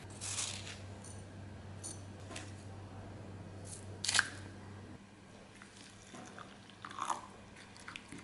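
Kitchen handling sounds: a few sharp taps and scrapes of a wooden spoon in a ceramic bowl as spices are spooned in and a marinade is stirred, the loudest tap about four seconds in. A low hum underneath stops about five seconds in.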